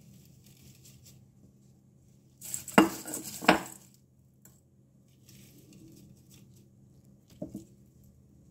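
A metal bowl knocks twice with a ringing clink about three seconds in, then once more, softer, near the end as it is handled and set down among the dishes.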